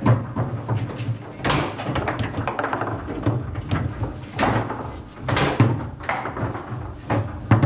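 Table football in play: the ball knocked by the rod figures and hitting the table walls, with rods clacking, a run of sharp irregular knocks.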